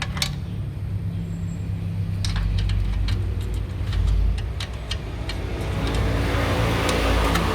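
Scattered metallic clicks and clinks of hand tools and parts being worked on a car's front suspension, over a steady low mechanical hum. A rushing hiss swells in over the last two seconds.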